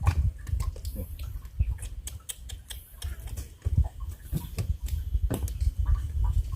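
Many quick, irregular small clicks and taps over a low rumble, as the freshly netted live shrimp and the cast net are handled.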